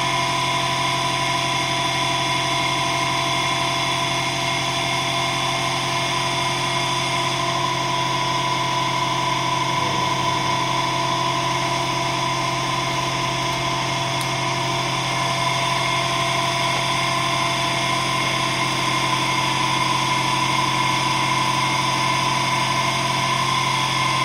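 Electric motor running steadily under load, drawing about 690 watts as it spins a wooden disc of twelve magnets inside a copper tube coil: a constant hum with a steady whine over it.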